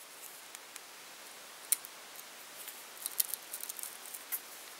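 Faint scattered small clicks and ticks of hands handling tools and materials at a fly-tying vise while super glue is put on the tying thread. One sharper click comes a bit under two seconds in, and a run of light ticks near the end.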